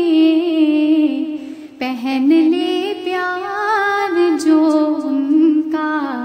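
A woman singing a naat solo, drawing out long notes that waver and slide in pitch, with a brief breath about one and a half seconds in.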